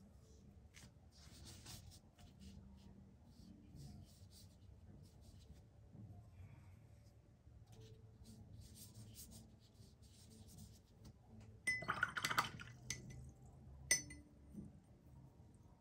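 Faint brushing of a watercolour brush on paper, then about twelve seconds in a brief run of clinks of the brush against a glass of water, and one sharp click shortly after.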